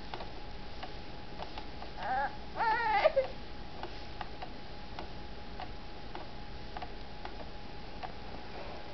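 A baby giving two short, high-pitched wavering cries about two to three seconds in, the second longer and falling in pitch at its end. Faint ticking clicks sound in the background.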